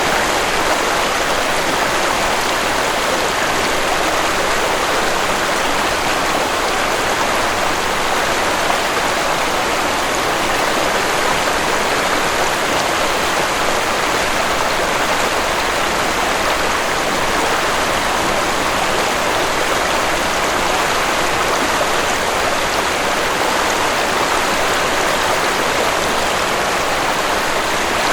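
Waterfall rushing: a steady, even hiss of falling water, with no change in loudness.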